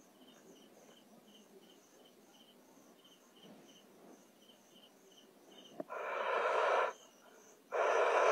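Crickets chirping in short, evenly spaced pulses, about three a second. About six seconds in, after a click, two loud breaths close to the microphone, each about a second long.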